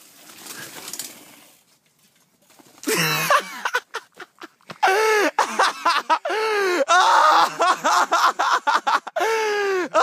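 A bicycle and rider going down into leaf litter and undergrowth, a short rustling crash. About three seconds in, a man starts crying out loudly in long, drawn-out moans that swoop up and down in pitch, one after another with brief breaths between.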